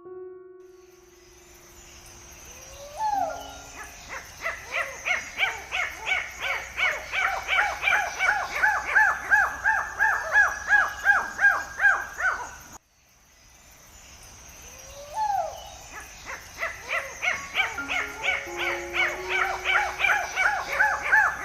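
An animal's rapid series of short, repeated calls, about four a second, building in loudness over several seconds, then cutting off abruptly and starting over the same way; a few low sustained music notes sound underneath.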